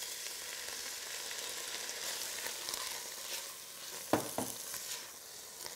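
Canned mushrooms and onions sizzling as they fry in a pot and are stirred with a spoon: a steady hiss, with two quick knocks just after four seconds in.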